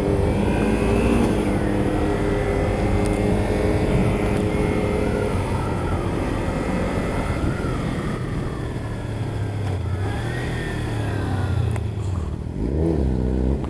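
Kawasaki Ninja 300 parallel-twin engine running while the motorcycle is ridden, over low wind rush. The engine note holds steady for the first few seconds, then drops back, and near the end it revs up with a rising pitch.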